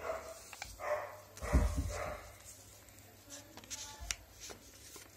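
A dog barking a few short times in the background, with a heavy low thump about a second and a half in. Paper crackles and clicks as a sheet is folded and creased by hand.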